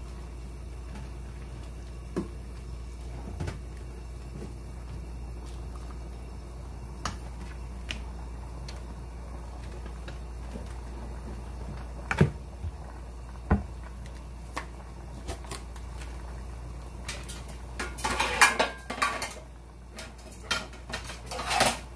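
Occasional knocks and clinks of cookware and utensils around a stainless steel cooking pot, then a burst of louder clattering in the last few seconds, over a steady low hum.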